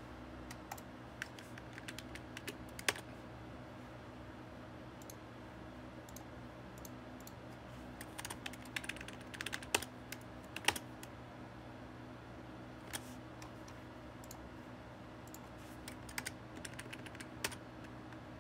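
Irregular clicking of a computer keyboard and mouse, in three flurries: near the start, in the middle and near the end, over a steady low hum.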